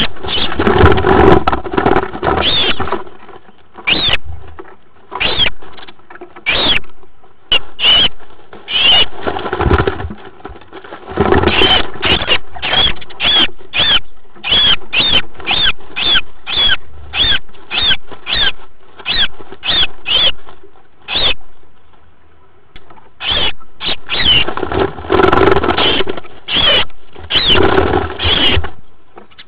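Sparrows squabbling inside a nest box: short, sharp chirps repeated over and over, about two a second in a steady run through the middle. Bouts of wing-flapping and scuffling in the nest straw close to the microphone come at the start, about a third of the way in, and again near the end.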